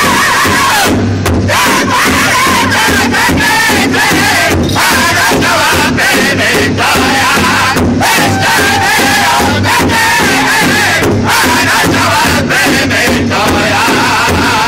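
Powwow drum group: several men singing loudly in unison, high-pitched, while striking a large shared hand drum together in a steady beat.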